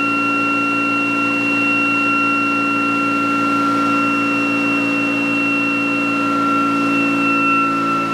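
A ReGen-X generator test rig and its prime mover running at about 3,420 RPM with a steady, high-pitched whine while the generator charges batteries under load. The pitch sags slightly toward the end.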